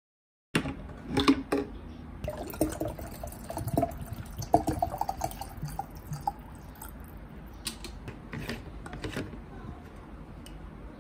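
Water filling a large plastic water bottle, with a shifting pitch as it fills. Near the end, a few sharp plastic clicks as the bottle's flip-top lid is handled and closed.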